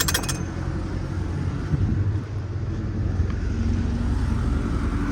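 Steady low rumble of an idling diesel truck engine. A fast run of sharp clicks cuts off just after the start.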